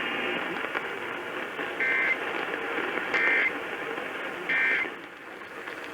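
Emergency Alert System end-of-message data tones: three short, identical bursts of shrill digital screech, about 1.3 seconds apart, over steady radio hiss. They mark the close of the severe thunderstorm warning broadcast.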